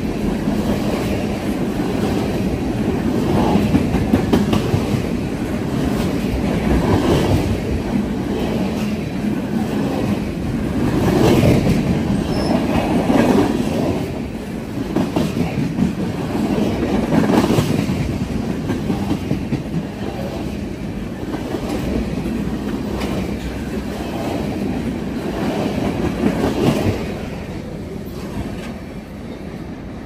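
Freight train of tank cars rolling past at close range: steel wheels clattering over the rail joints in a rising and falling clatter as the cars go by. The sound drops off suddenly near the end as the last car passes and moves away.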